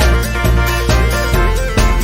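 Background music with a steady beat of about two strokes a second and heavy bass.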